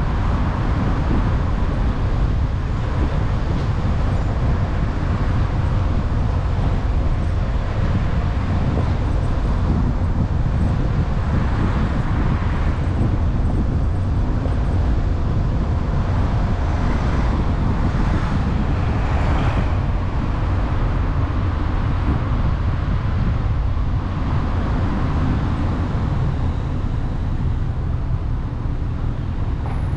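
Steady low rumble of a car driving, engine and tyre noise together, with a few louder swells of traffic about halfway through.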